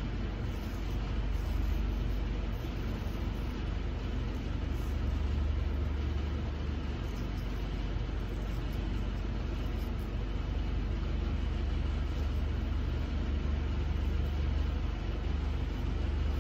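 Steady low rumble of an idling heavy truck engine.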